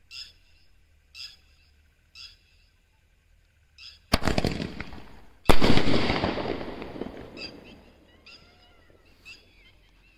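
Medium-size sky shot firework: a sharp launch about four seconds in, a short hiss as it climbs, then a loud bang as it bursts overhead about a second and a half later. Crackling follows the bang and fades over a couple of seconds.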